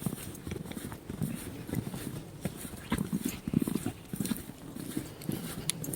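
Footsteps crunching through fresh snow, about two steps a second.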